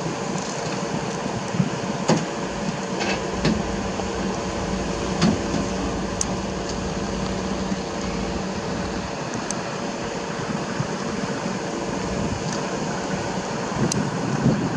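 Diesel track machinery idling with a steady hum, with a few light clicks and taps scattered through it.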